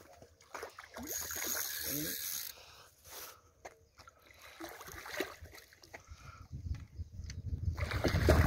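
A hooked carp thrashing and splashing at the water's surface as it is drawn into a landing net, with a sustained burst of splashing about a second in. A low rumble builds near the end.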